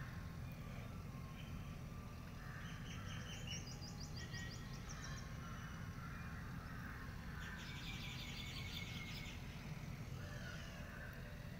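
Birds calling in short bursts of rapid chattering trills, three bursts a few seconds apart, over a steady low rumble.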